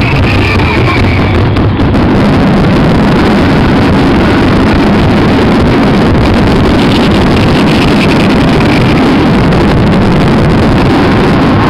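Fireworks finale: a dense barrage of aerial shells bursting so close together that the reports merge into one continuous, very loud rumble with no gaps between the bangs.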